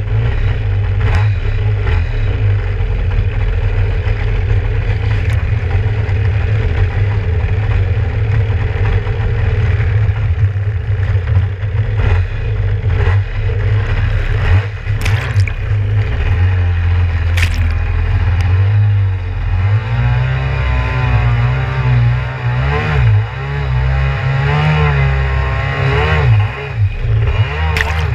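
Kawasaki 650SX two-stroke stand-up jet ski engine idling steadily, then from about halfway through revving up and down repeatedly as the throttle is worked, with occasional knocks of water against the hull.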